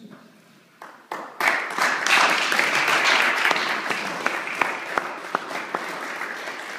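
Applause from a small group of people. A couple of single claps about a second in, then the clapping swells quickly, is loudest soon after and slowly thins out, with a few close, sharp single claps standing out.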